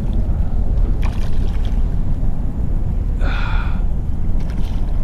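Strong wind buffeting the microphone over choppy water, with a few light clicks about a second in and a short pitched buzz about three seconds in.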